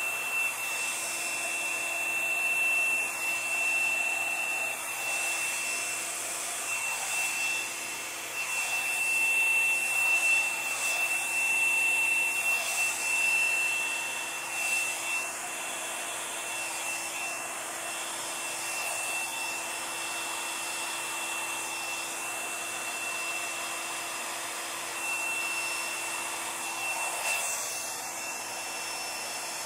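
Small handheld hair dryer running steadily with a high whine, blowing wet acrylic pour paint across a canvas; the airflow swells and eases a little as it is moved over the paint.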